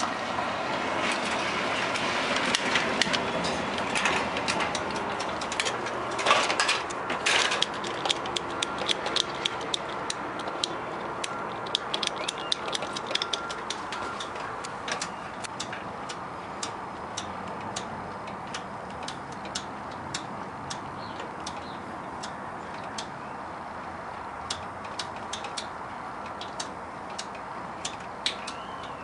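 A spark igniter at a gas oven's pilot burner clicking over and over, several sharp clicks a second, as someone tries to light the pilot. For about the first eight seconds the clicks ride over a rushing hiss, which then eases off.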